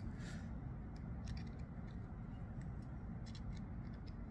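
Faint, scattered light clicks and ticks of small metal parts being handled while a folding knife is taken apart with a small Torx driver.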